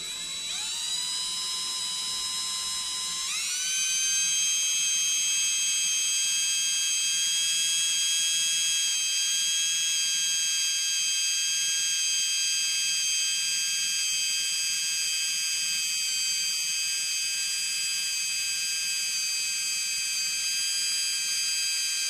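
Cordless drill spinning a brake cylinder hone inside a cast-iron master cylinder bore to take out pitting and corrosion. A steady high motor whine that steps up in speed twice in the first few seconds, then holds.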